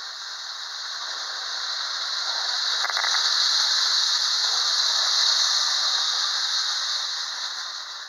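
1930s Girard whistling train station's built-in electric whistle blowing, a steady, loud, airy hiss-like whistle. It swells through the middle and eases off near the end.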